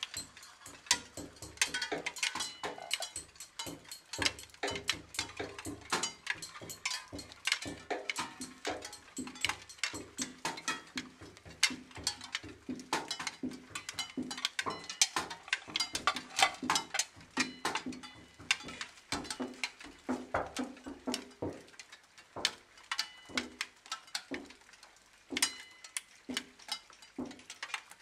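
Dense, irregular clicking and crackling, many sharp ticks a second, with faint pitched fragments underneath.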